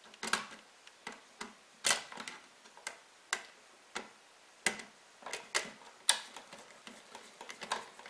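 Screwdriver turning down the green ground screw on a GFCI outlet, giving a string of short, sharp metal clicks at irregular intervals, roughly two a second, as the tip catches and turns the screw.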